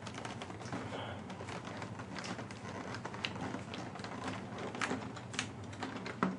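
Irregular light clicks, taps and rustling of packaging being handled as a model train passenger car is lifted out of its box.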